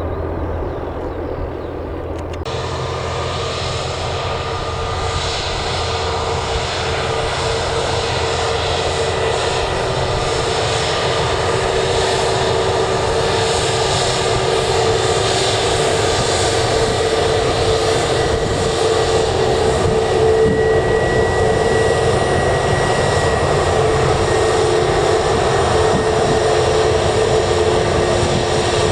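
Airliner engines running with a steady whine over a broad rush, growing slowly louder. The sound changes abruptly about two seconds in.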